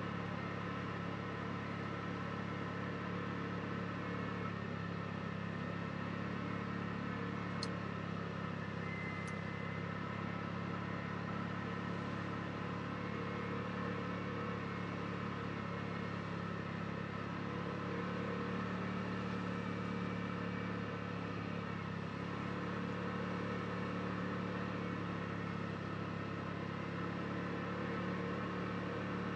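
Side-by-side's engine running at a steady cruise, an even drone that holds one pitch without revving.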